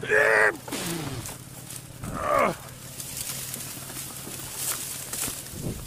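A man grunting with effort, two strained groans, one at the start and one about two seconds in, as he hauls a small motor scooter out of a ford through dry grass. Grass rustles, and a low steady hum runs underneath.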